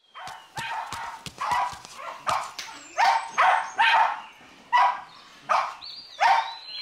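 A Shetland sheepdog barking repeatedly: about a dozen short barks, roughly two a second.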